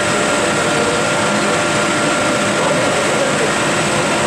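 Industrial wood dust burner and its blower running: a steady loud rush of air and flame with a few constant hum and whine tones.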